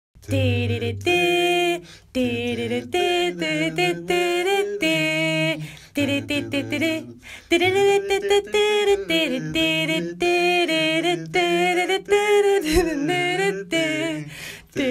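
A cappella vocal music: voices singing without instruments in short phrases with brief breaks between them.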